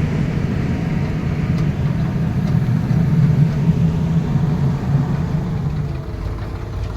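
Heavy diesel engine of earthmoving machinery running steadily. It grows a little louder midway and eases about six seconds in.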